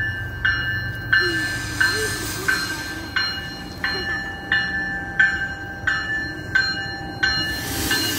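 Bell of an MBTA Commuter Rail bi-level cab car ringing steadily, about three strikes every two seconds, over the low rumble of the moving train. The train noise swells near the end as the cab car draws alongside.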